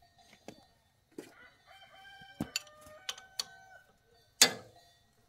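Metal clinks and knocks of a wrench working on the underside of a walk-behind tractor's single-cylinder engine, ending in one loud clank near the end. A rooster crows in the background through the middle.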